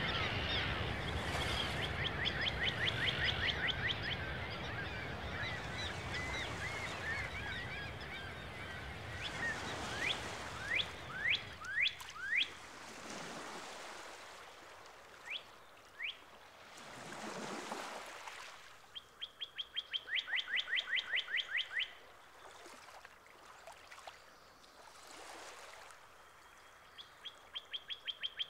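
Songbirds singing: a rapid, even trill of about a dozen notes a second comes three times, with sharp single chirps between. Under it, a steady rushing wash fades away over the first dozen seconds, and two soft whooshes rise and fall later on.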